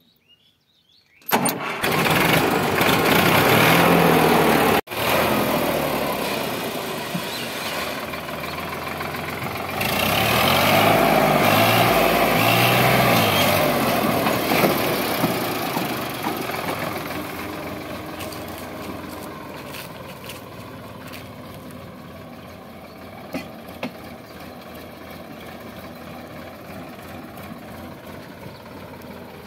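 Sonalika DI 745 III tractor's three-cylinder diesel engine started on the key about a second in, catching at once and running loud and steady. It swells again about ten seconds in, then fades steadily as the tractor pulls away.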